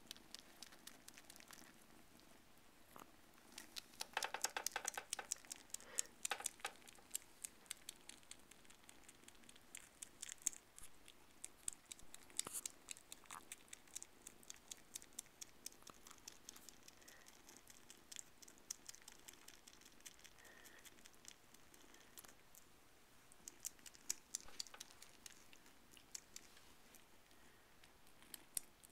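Siamese kittens suckling on a plush toy squirrel: quiet, rapid clicking and smacking that comes in bursts of a few seconds, with calmer stretches between.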